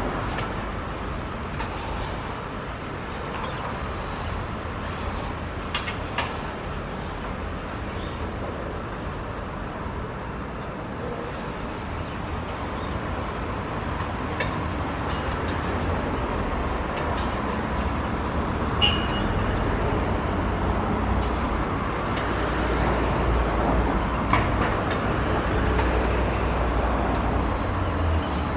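Distant Boeing 777-300ER's twin GE90 jet engines running at taxi power, a steady rumble that grows louder in the last third as the airliner turns on the runway, with a rising whine near the end.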